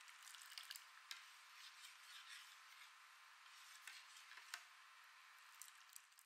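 Faint bubbling and hiss of green tea boiling in a stainless steel saucepan. Splashes and small clinks come every second or so as a steel ladle scoops the tea and pours it back in from a height.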